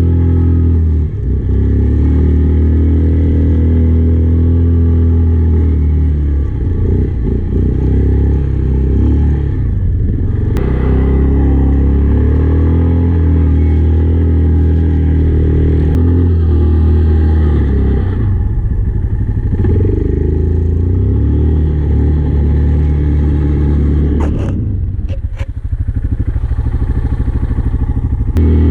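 Kodiak ATV engine running under throttle, its pitch shifting up and down as the rider eases off and gets back on the gas several times.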